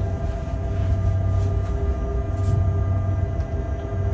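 Freight train locomotive heard from inside its cab while rolling: a steady low rumble with a constant hum at several pitches, and a faint brief click about halfway through.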